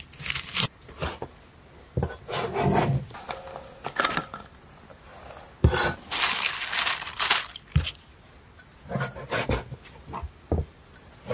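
Kitchen knife sawing through tough pork on a cutting board: irregular bursts of scraping strokes with a few sharp knocks of the blade on the board.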